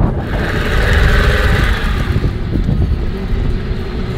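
Small outboard motor driving an inflatable dinghy across choppy water, with wind rushing over the microphone. Water hisses along the hull for the first couple of seconds, and a steady motor tone comes through later.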